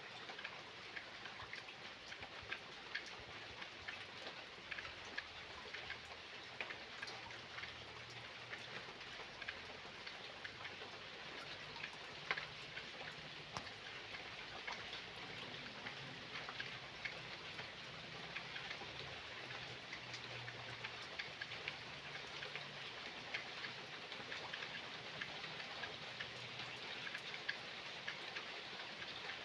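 Steady light rain falling, a dense scatter of small drop ticks over a soft hiss, with a faint low hum underneath.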